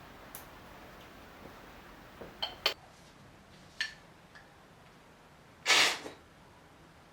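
Crockery clinking: a few light clicks, then two or three small ringing clinks a couple of seconds in and another near four seconds. About six seconds in comes the loudest sound, a brief rush of noise lasting about half a second.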